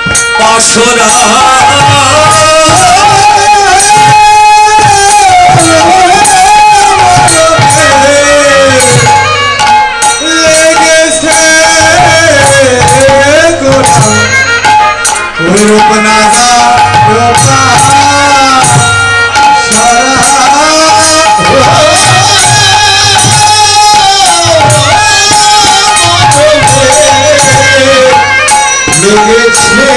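Bengali devotional kirtan: a man sings a melody into a microphone, with long notes that bend up and down, over steady khol drum rhythm.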